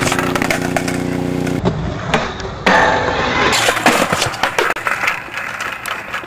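Skateboard wheels rolling on concrete, then several sharp clacks as the board hits the ground and shoots out from under the skater. A steady hum runs through the first second and a half, before a cut.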